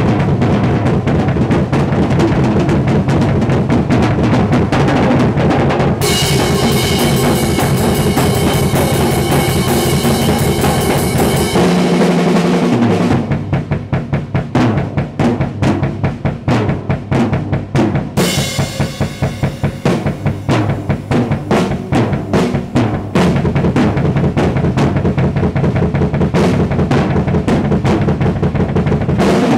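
Acoustic drum kit played fast in a metal style: rapid snare, tom and bass-drum strokes. A cymbal wash comes in about six seconds in and again around eighteen seconds. The bass drum drops out briefly around twelve seconds and again for a few seconds from about eighteen.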